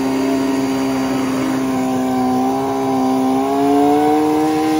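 Turbocharged Honda CBR1000RR Pro Street drag bike's inline-four engine held at high, steady revs during a burnout. The pitch rises slightly about three and a half seconds in.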